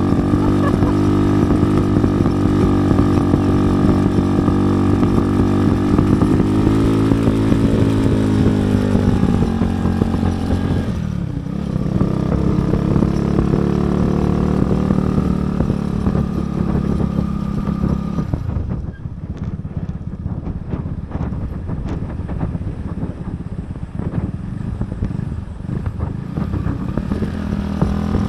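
Motorcycle engine running under load up a steep concrete road, its steady note dipping about eleven seconds in. After about eighteen seconds the clear engine note gives way to a rougher rattling noise.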